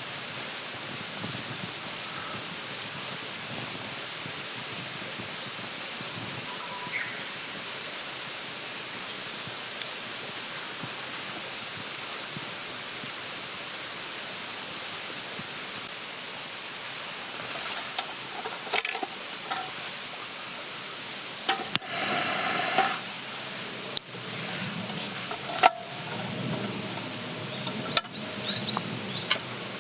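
A steady, even hiss throughout. From a little past halfway come scattered sharp knocks and clicks, with a brief ringing clatter about three-quarters of the way in.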